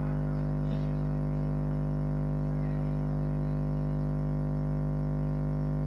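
A steady low hum with a stack of overtones, unchanging in pitch and level.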